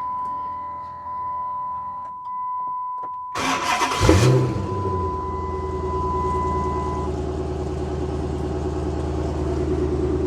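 Chrysler 300 SRT8's HEMI V8 with a full exhaust system being started: a short crank about three and a half seconds in, then it catches with a brief flare and settles into a steady idle. A steady high electronic warning tone sounds through the start and stops about seven seconds in.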